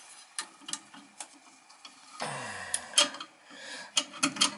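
Irregular light clicks and knocks of tools and metal parts being handled during hands-on work on a gas furnace, with a short rustling scrape about two seconds in.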